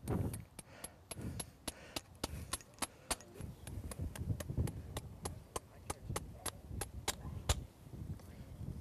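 Farrier's hammer tapping steel in quick, even light blows, about three a second, each with a short bright ring: work on a horseshoe being shaped to fit.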